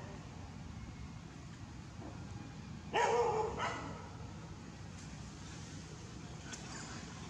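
Dog barking: two barks in quick succession about three seconds in, and a fainter one near the end.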